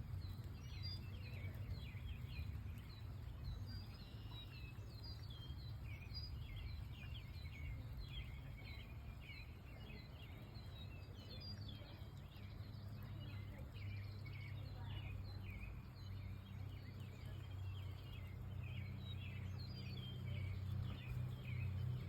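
Birds chirping, many short calls one after another, over a steady low hum.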